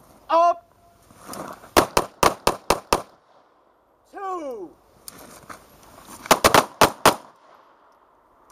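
Two 9mm pistols, a Kahr PM9 and a Ruger SR9, fired in rapid strings on an outdoor range: two volleys of about six quick shots each, the second volley about four seconds after the first. Each volley follows a short sliding tone about a second and a half before it.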